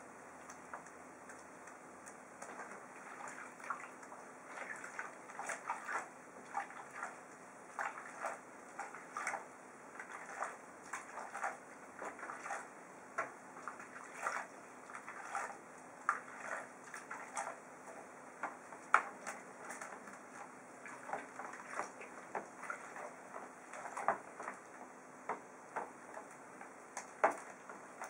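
Hands swishing and splashing soapy water in a plastic tub while scrubbing a pigeon: a stream of small, irregular splashes and drips.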